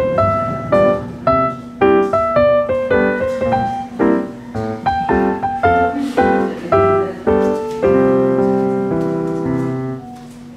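Background piano music: a gentle melody of separate struck notes, settling on a held chord that fades away about ten seconds in.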